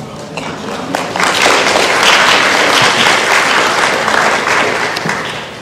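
Wedding guests applauding a groom's vows, the clapping swelling about a second in and fading near the end.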